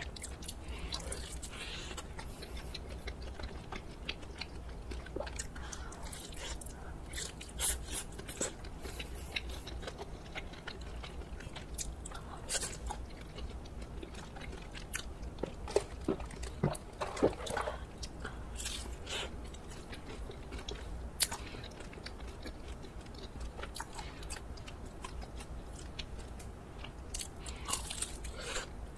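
Close-miked eating of crisp croffles: scattered crunchy bites and chewing, with a pizza croffle first and a Nutella almond croffle bitten near the end.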